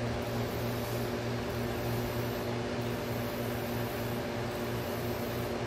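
Steady mechanical hum: a constant low drone with overtones above it over a light hiss, unchanging throughout.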